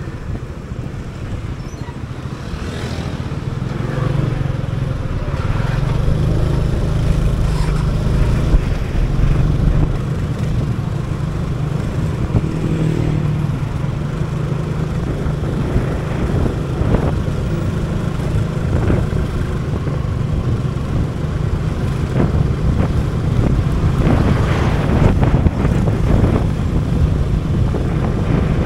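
Scooter engine running steadily while riding through city traffic, with other vehicles passing close by.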